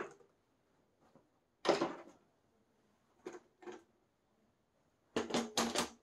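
Plastic upright vacuum cleaner being handled and moved by hand, switched off: a few separate knocks and rattles, a louder clatter about two seconds in, two short knocks, and a quick cluster of several knocks near the end.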